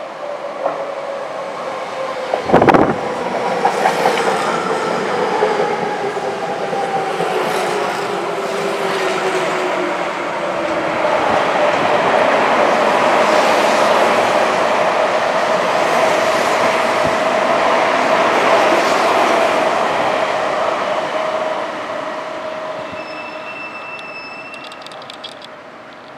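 Electric commuter trains running into the station, a Tokyo Metro 9000 series with Mitsubishi IGBT-VVVF inverter alongside a Tobu 50070 series: the inverter whine falls slowly in pitch as the train brakes, over wheel clatter and a loud clank a few seconds in. A steady hum holds as the train runs along the platform, then fades, with a brief high beep near the end.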